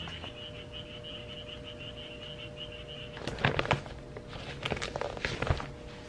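Newspaper pages rustling and crinkling as a broadsheet is opened and handled, in two bursts about three and five seconds in. A fast pulsing high chirp runs through the first three seconds, over a faint steady hum.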